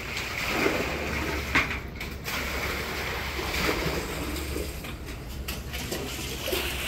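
Muddy floodwater sloshing and splashing as it is scooped out with a plastic bucket, with a few light knocks.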